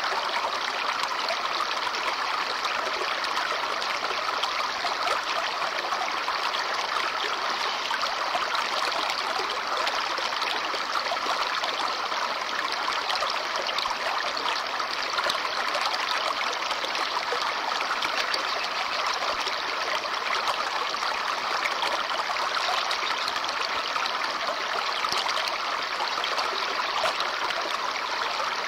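Small brook babbling over stones: steady trickling and gurgling of shallow running water.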